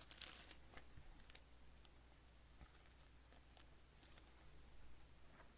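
Faint rustling and light clicks of trading cards and plastic card sleeves being handled, with a small cluster of rustles at the start and again about four seconds in.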